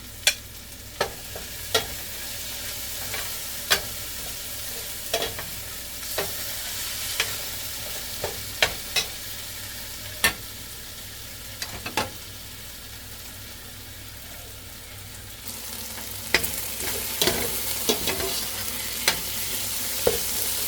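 Ground beef and garlic frying in achuete oil in a pan, a steady sizzle, with a utensil clicking against the pan at irregular moments as it is stirred. The sizzle gets louder about three-quarters of the way through.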